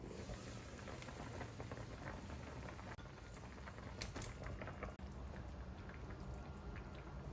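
Food cooking in a pan: a steady crackling and bubbling with many small irregular pops.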